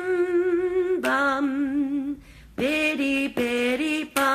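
A woman singing unaccompanied: a short tune of held notes with vibrato, broken by brief gaps between phrases.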